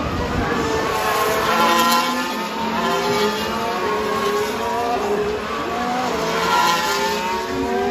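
Several Formula 1 cars' 1.6-litre turbocharged V6 hybrid engines passing one after another through a corner, the engine notes overlapping and rising and falling in pitch as each car goes by.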